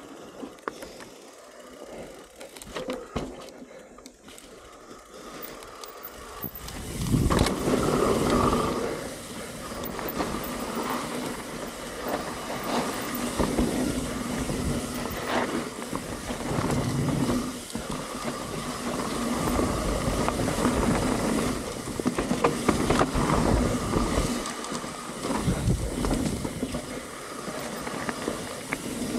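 Mountain bike riding fast down a dirt trail: tyres rolling over the ground, with the bike rattling and knocking over bumps. It is quieter for the first several seconds, then much louder from about seven seconds in as the speed picks up.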